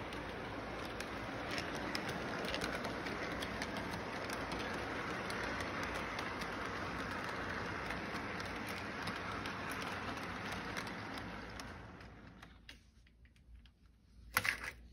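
Electric model train running on its track loop: a steady rumbling rattle of wheels and motor with many small clicks from the rail joints, dying away about twelve seconds in. A single sharp knock comes near the end.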